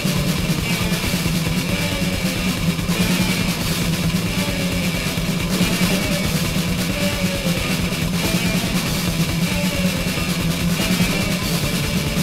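Death/thrash metal recording: distorted electric guitars and drum kit playing at a steady, loud level.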